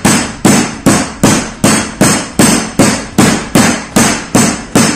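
Metal meat tenderizer pounding chicken breast through plastic wrap on a plastic cutting board: a steady run of strikes, about two and a half a second, flattening the meat to make it tender.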